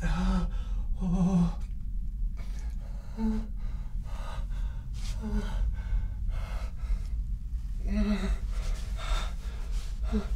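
A man gasping and breathing hard again and again, short ragged breaths, some with a brief strained voiced grunt, over a low steady hum.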